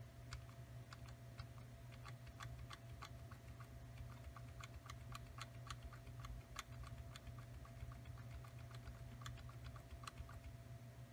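Faint, irregular clicking of computer keys, several clicks a second in clusters, over a low steady hum.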